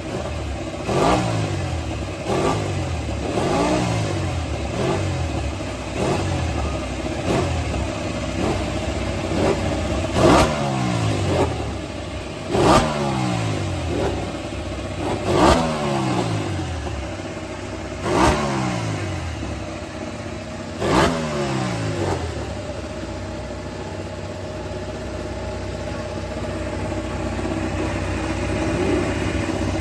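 Pramac Ducati Desmosedici MotoGP bike's V4 engine revved in about a dozen sharp throttle blips, each jumping up and falling back in pitch, then settling to a steady idle for the last several seconds.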